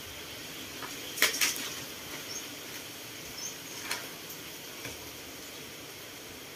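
A few sharp knocks, two close together about a second in and weaker ones later, with two brief high chirps around the middle over a steady outdoor background hiss.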